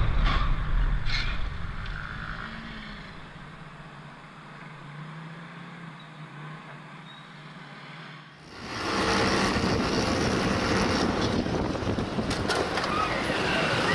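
Wind and road noise from a motorcycle riding in traffic, fading down to a quieter low hum, then about eight seconds in switching abruptly to a louder, steady rush of wind and engine noise.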